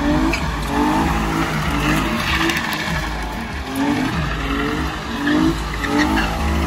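A car engine revving hard in repeated short rising pulls while its tyres squeal and skid: the car is spinning its wheels.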